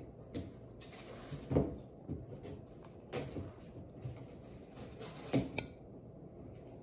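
Cats scrambling in and around a cardboard box: scratching and rustling of cardboard, with a few sharp knocks and thumps, the loudest about a second and a half in.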